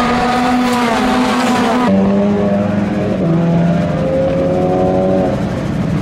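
Several TCR touring cars' turbocharged two-litre four-cylinder engines running hard on track, their notes holding and gliding slightly in pitch. The sound changes abruptly about two seconds in, to a new set of engine notes.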